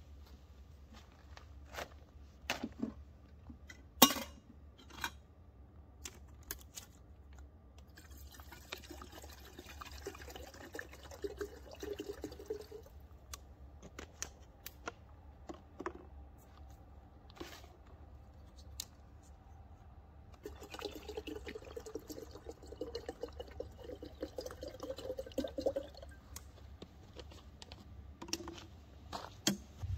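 Water poured into a vessel for coffee, twice, each pour lasting about four to five seconds, the second rising slightly in pitch as the vessel fills. Scattered clinks and knocks of cookware, the loudest a sharp knock about four seconds in.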